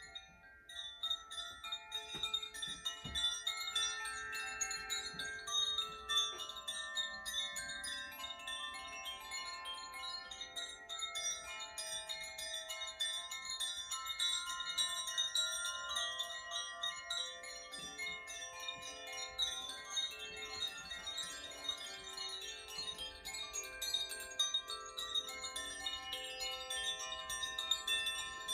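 Koshi chimes, tuned bamboo wind chimes, played by hand: a continuous tinkling of many overlapping ringing tones that builds over the first couple of seconds and goes on throughout.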